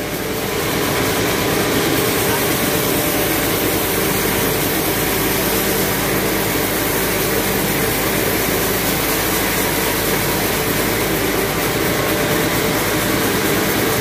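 A large vertical band sawmill running with a steady, even machine drone.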